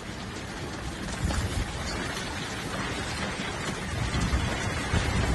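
Heavy typhoon rain falling steadily, with gusts of wind buffeting the microphone in low rumbling surges; it grows louder toward the end.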